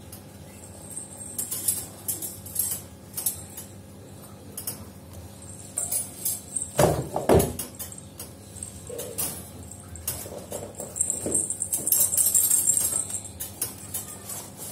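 Himalayan kittens playing in a wire cage: scattered light metallic jingling and clicking, with a couple of louder soft thumps about seven seconds in.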